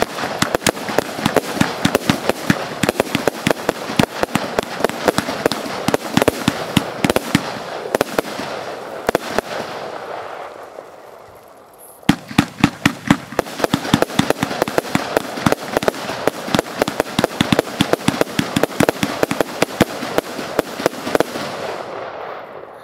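Compound fireworks cake (Lesli Signature Show, 123 + 93 shots) firing rapid volleys of shots, several a second, over a crackling wash. The firing thins and fades out about ten seconds in, and a fresh loud run of shots starts abruptly about two seconds later.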